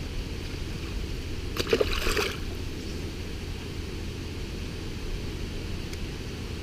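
Steady low rumble of a bass boat on the water, with a short noisy burst about two seconds in.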